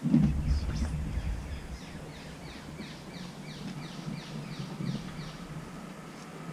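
A bird calling repeatedly outdoors, a string of short descending notes at about two or three a second. A brief low rumble on the microphone in the first second or so.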